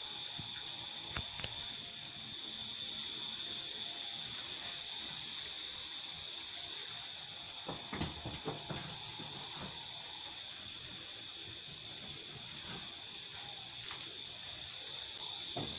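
Steady high-pitched chorus of crickets, a little louder from about two seconds in, with a few faint knocks.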